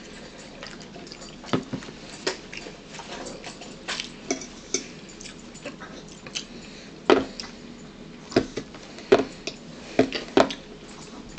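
Chewing and lip-smacking close to the microphone, with occasional clicks of a spoon on a bowl. The sounds come irregularly, with several louder smacks in the second half.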